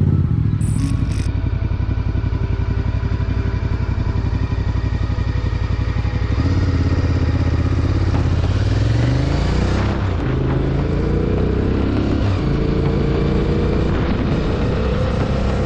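Motorcycle engine running, then accelerating from about six seconds in, its pitch climbing and dropping back several times as it shifts up through the gears.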